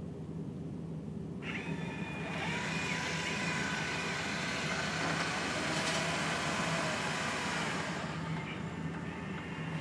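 Narwal Freo robot vacuum running over a low steady hum. About a second and a half in, a motor whine starts and shifts in pitch, and a louder suction hiss swells in the middle before easing off near the end.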